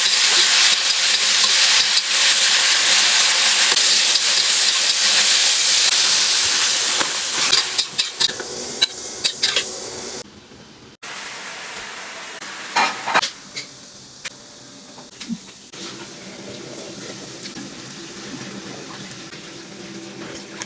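Food sizzling loudly in a hot pan as it is stirred. About seven seconds in, the sizzle fades, leaving scattered clinks of a utensil against the pan and a quieter background hiss.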